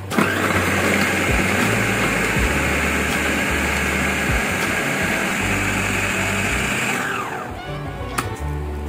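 Food processor motor starting up and chopping chunks of raw vegetables with a loud, steady whirring for about seven seconds, then spinning down with a falling whine. A few plastic clicks follow as the lid is handled.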